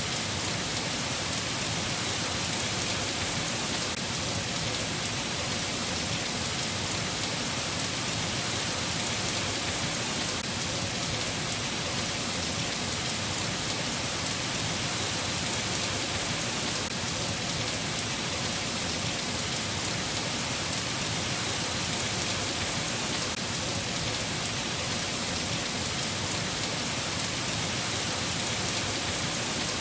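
Steady rain falling, an even, unbroken hiss of drops on a surface with no change in strength.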